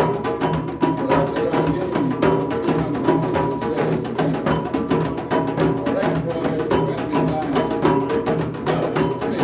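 Drumming: a dense, steady stream of rapid drum strokes.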